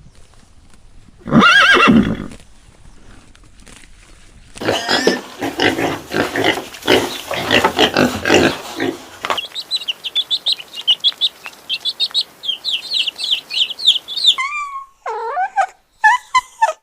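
A string of animal calls from different animals: one loud pitched call about a second in, then a dense run of rapid calls, then fast, high chirping, and shorter falling calls near the end.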